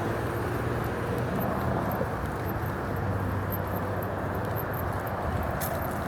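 Steady road-vehicle noise: an even low rumble and hiss with a constant low hum, with faint light clicks here and there.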